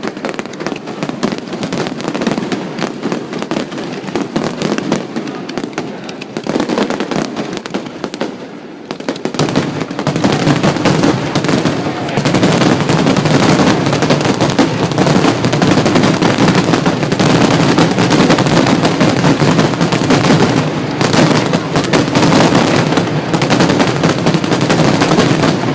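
Fireworks going off in a dense, rapid barrage of bangs and crackles, louder and thicker from about ten seconds in.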